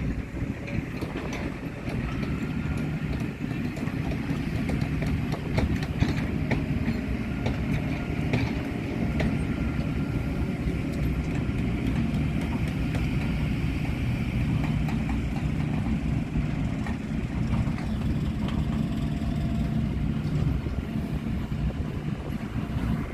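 Heavy construction machine's diesel engine running steadily, with scattered clanks and rattles.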